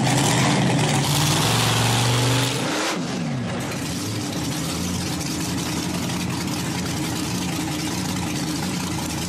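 Monster truck's engine running loud as it drives. About three seconds in its pitch dips and climbs again, then it settles into a steady, slightly quieter run.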